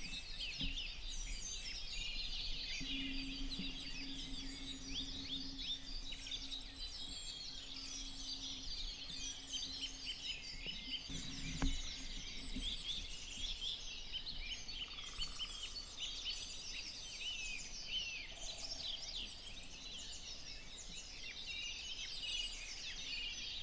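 Many songbirds singing together in a spring dawn chorus, a dense, unbroken mix of chirps and trills. A single sharp click comes about twelve seconds in.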